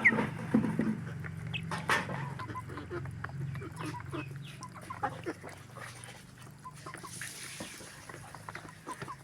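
Chickens clucking, short scattered calls over a steady low hum that fades away near the end.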